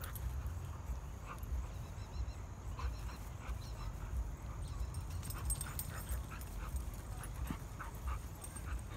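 Dogs at rough-and-tumble play giving short yips and whines, many brief calls that bunch together about halfway through.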